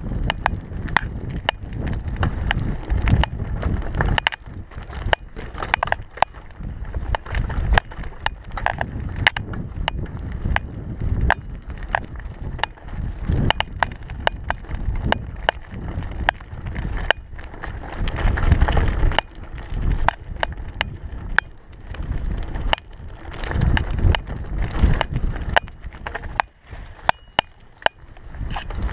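Mountain bike rolling over a rough dirt trail: a continuous rumble from tyres and jolting, broken by frequent sharp rattles and clacks from the bike as it hits bumps.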